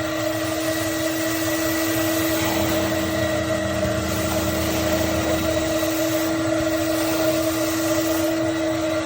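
Vacuum motor running steadily with a constant whine; a lower rumble under it drops away a little past halfway.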